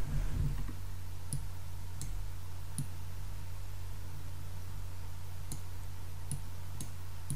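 Steady low hum with about seven faint, sharp clicks at uneven intervals.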